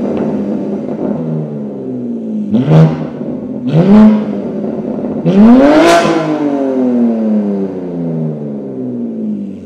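BMW G81 M3 Touring's S58 twin-turbo straight-six, breathing through a DCE Parts non-resonated equal-length X-pipe midpipe with stock downpipes and muffler and the exhaust valves open, free-revving while parked. The revs fall away from an earlier blip, then three sharp throttle blips come about 3, 4 and 6 seconds in, the last one highest and falling back slowly toward idle.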